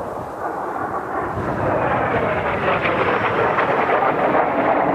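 Kawasaki T-4 jet trainers flying over, a loud rushing jet roar that builds over the first two seconds and then holds.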